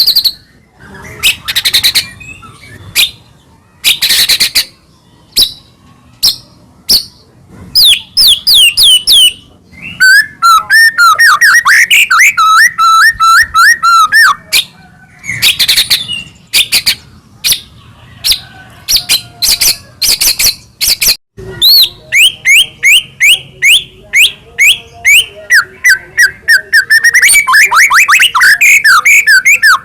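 White-rumped shama (murai batu) singing loudly and without pause: a varied song of sharp chirps, rapid trills and whistled phrases that slide up and down, with runs of quickly repeated notes.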